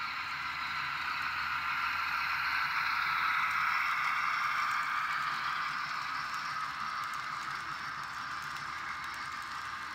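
N scale model freight train rolling past on the track: a steady whirring clatter of wheels on rail that swells as the train comes nearest and slowly eases off as the cars go by.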